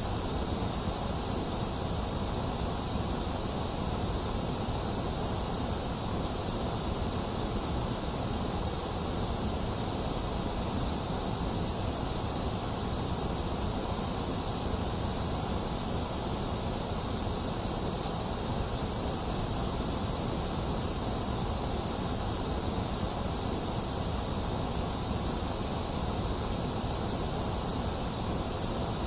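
Box fan running together with steady rain, making an even, unchanging rush of noise.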